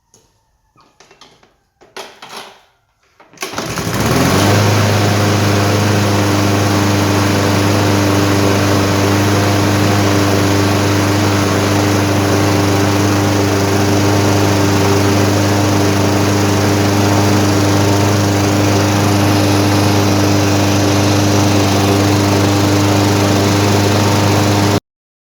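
Craftsman lawn mower's 163cc Briggs & Stratton single-cylinder four-stroke engine starting about three and a half seconds in, after a few handling knocks and a rustling burst. It then runs at a steady, constant speed and stops abruptly near the end.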